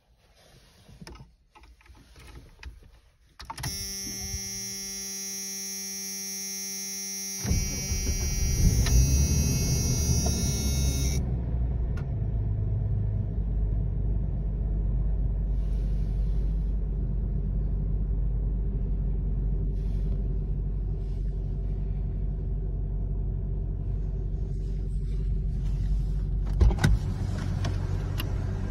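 1994 Jeep Cherokee's engine cold-started, heard from inside the cabin: it catches almost at once, flares briefly in revs and settles into a steady idle. A steady electronic warning tone sounds from a few seconds before the start until a few seconds after it, and there are a couple of sharp knocks near the end.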